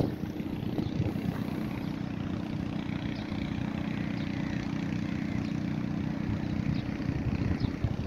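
Wind rumbling and buffeting on a phone's microphone, a steady low roar, with faint bird chirps above it.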